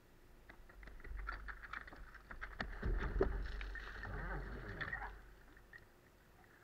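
Firefighting-sport team handling suction hoses at the pump: running footsteps on paving, with knocks and clanks of the hoses and couplings and a scraping rumble as the hoses are dragged, busiest from about one to five seconds in.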